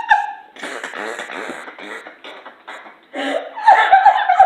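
A person laughing: breathy, wheezy laughter, then voiced laughter in short bursts near the end.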